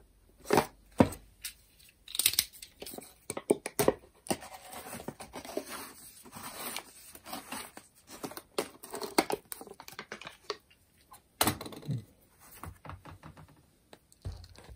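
Foil seal on a plastic powder jar being picked at and torn off: scratchy crinkling and tearing of thin foil, with sharp clicks and taps of fingers and lid on the jar.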